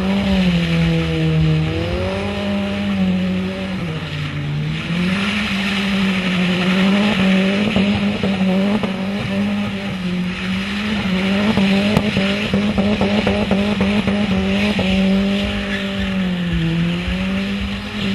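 A drift car's engine held at high revs, dipping briefly a few times, with a fast stutter in the middle, as the rear tyres squeal and spin continuously through smoky donuts.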